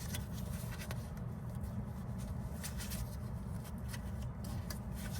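Faint scattered clicks and rubbing as the rear wheel speed sensor wire is handled and pushed into its plastic retaining clips behind the hub, over a steady low rumble.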